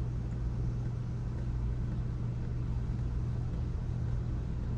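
Steady low mechanical hum, like an engine or generator running.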